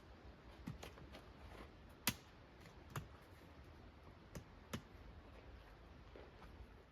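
Faint scattered clicks and light taps, about six in all, the sharpest about two seconds in, over a low steady hum.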